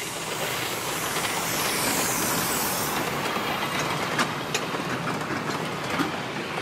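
Miniature 'Merchant Navy'-class steam locomotive running past close by with a hiss of steam that falls in pitch as it goes by, then its coaches rolling past with sharp clicks from the wheels on the rails.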